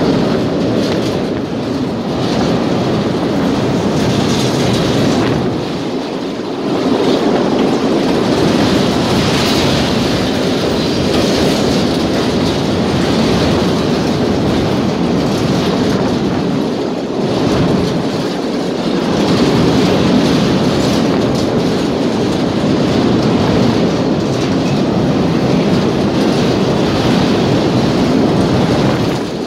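3ES5K electric locomotive running at speed over a steel bridge: a steady rumble of wheels rolling on the rails, heard from inside the rear cab, dipping briefly a couple of times.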